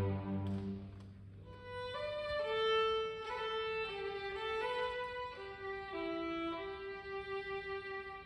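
School string orchestra playing: a full chord with low cellos and basses dies away in the first second, then violins take up a slow, quieter melody of changing notes over a held note.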